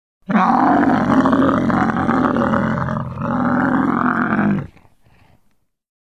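Sound-effect roar made for a Megatherium (extinct giant ground sloth): one loud, low roar of about four seconds that dips briefly about three seconds in, then trails off.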